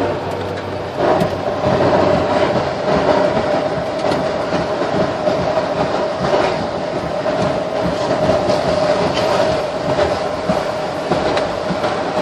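Car rolling on a wet road with something caught underneath, perhaps a tree branch, dragging along the pavement. It makes a rapid rattling clatter and a steady scraping squeal that gets louder about a second in, over tyre hiss.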